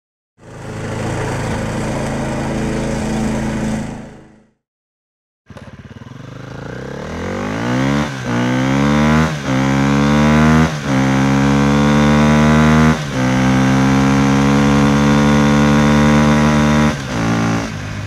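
A petrol lawn mower engine runs steadily for about four seconds, then stops. After a short silence a motorcycle engine accelerates through the gears: its pitch climbs, dips sharply at each of several gear shifts, and holds steadier in the higher gears before fading out near the end.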